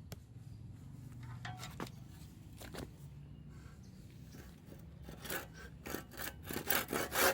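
Kapusi 18-inch crosscut hand saw on wood: a few light knocks and scrapes at first, then from about five seconds in the blade starts quick, regular back-and-forth sawing strokes that grow louder.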